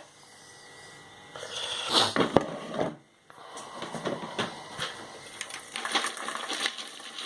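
Popped popcorn being handled in a plastic tub: a few knocks, then a steady run of light rustling and clicking as the popcorn is moved about.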